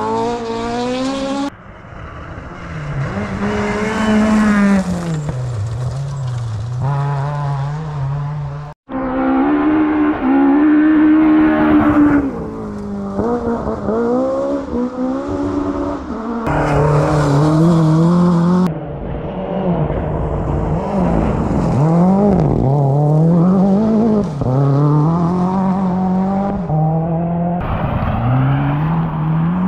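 Rally cars passing one after another, each engine revving hard. The pitch climbs and drops repeatedly through gear changes and lifts, and the sound switches abruptly from one car to the next several times.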